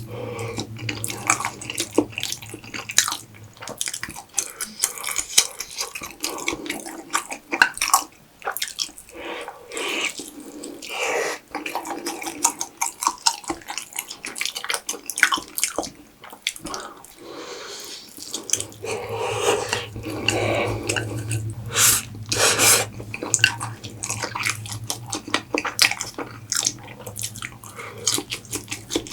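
Wet eating sounds of spicy Buldak steak and fire noodles: a continuous run of sticky, squelching chews and mouth clicks.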